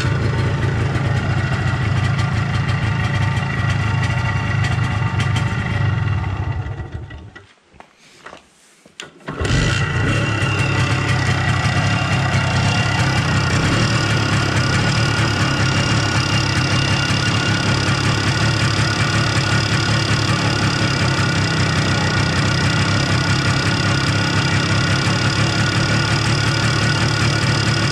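1978 MZ TS 250's single-cylinder two-stroke engine idling after being started. It dies out about seven seconds in, is started again about two seconds later, and then idles steadily.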